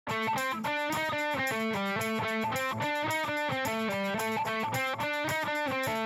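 Guitar riff: a quick, repeating figure of short plucked notes played steadily.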